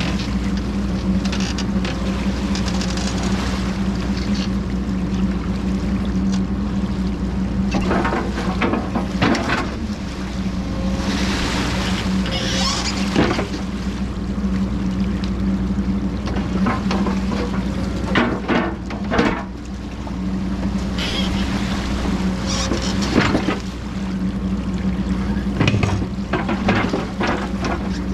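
Diesel engine of a CAT 420F backhoe running steadily at a constant speed while it clears a plugged culvert pipe, with scattered knocks and bursts of rushing, splashing water.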